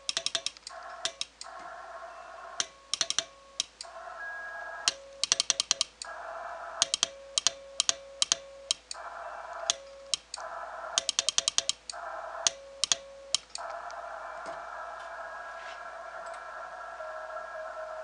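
Morse code hand-sent on a straight key, its contacts clicking in quick clusters as call signs are keyed, each press sounding the Yaesu FT-891's steady CW sidetone beep, with receiver hiss in the gaps. About thirteen and a half seconds in the keying stops and only the radio's band hiss remains, with a faint tone in it.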